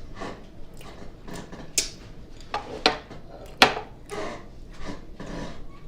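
Handling noises at an eating table: a few sharp clicks and knocks from food and tableware being handled, the loudest about three and a half seconds in, with soft rustling and scraping between them.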